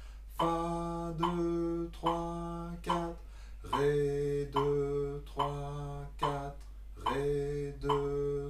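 A man singing through a trombone part unaccompanied, in steady rhythm, sounding each note and the beats after it on one sustained pitch. The first notes sit on one pitch, then after a short break about three and a half seconds in the line drops to a lower one.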